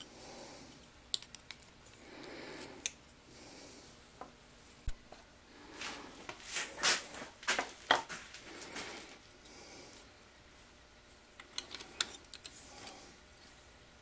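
Thin copper jaw cover and steel pliers being handled and worked by hand: scattered sharp metallic clicks and clinks with soft rubbing between them, and a dense run of clicks in the middle.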